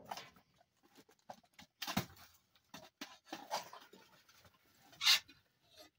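Styrofoam packaging and plastic bags rustling, squeaking and scraping as a metal reach pole is worked through dumpster trash. The handling makes scattered clicks, with a sharp knock about two seconds in and a louder scratchy crinkle just after five seconds.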